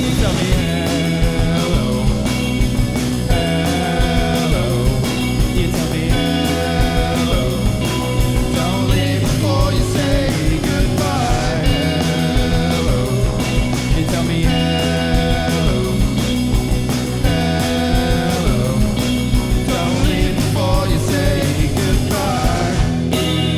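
A band playing rock music: melodic lines over bass and steady drums. Near the end the drums stop and a chord rings on.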